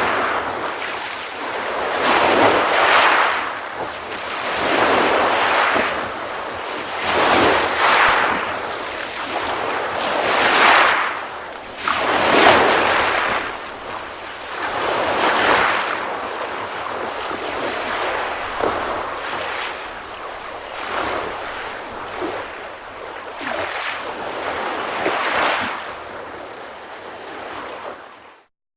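Ocean waves breaking and washing on a shore, surging every two to three seconds, the surges smaller later on, then cutting off suddenly near the end.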